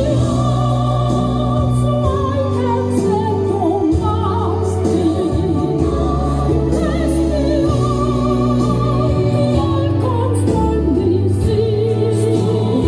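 Christian worship music: singing with wavering, vibrato-laden voices over sustained low chords that change every couple of seconds.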